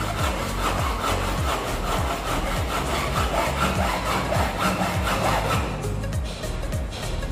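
Hand hacksaw cutting with steady back-and-forth strokes, a rasping sound that thins out near the end.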